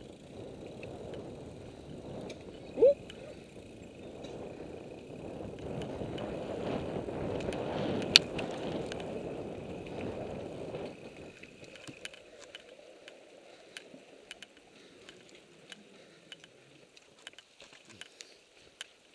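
Mountain bike rolling fast down a dirt forest trail, heard from a camera mounted on the bike: a rushing mix of tyre noise on the dirt, wind on the microphone and rattles from the bike, building up in the middle, then easing off to quieter rolling with scattered clicks and ticks. A brief loud squeak cuts in about three seconds in, and a sharp knock just past the middle.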